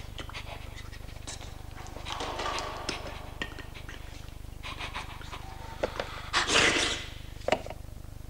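Animation sound effects for a small creeping creature: scattered short scratchy, animal-like noises, with a louder noisy burst about six and a half seconds in, over a steady low hum from the old film soundtrack.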